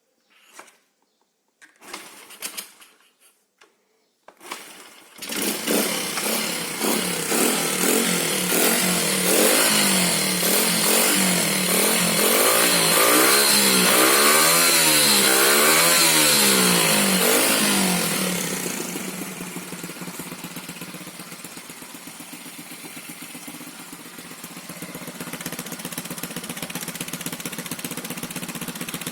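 Small single-cylinder four-stroke engine of a Honda Z50 minibike catching after a few short bursts, running fast with the revs rising and falling, then settling to a quieter steady idle about two-thirds of the way in.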